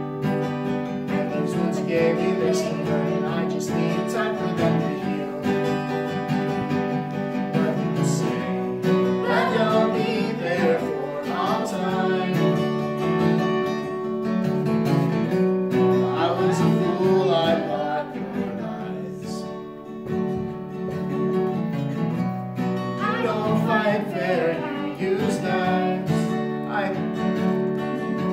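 Acoustic guitar strummed steadily, with a voice singing over it in phrases that come and go.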